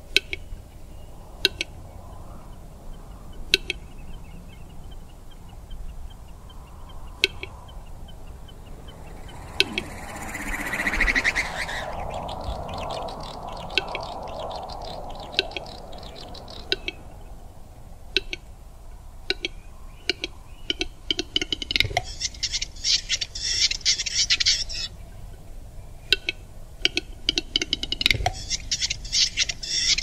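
Wood campfire crackling, with sharp pops every second or two, while night birds call. A louder call comes about ten seconds in, and spells of rapid, high chattering calls come about two-thirds of the way through and again near the end.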